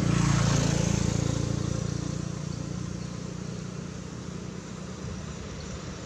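A motor vehicle's engine passing by, loudest about half a second in and then fading away over the next few seconds.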